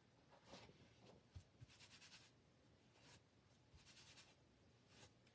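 Near silence with a few faint rubbing and rustling strokes: an adhesive silkscreen transfer being pressed and rubbed on a terry towel to take off some of its tack.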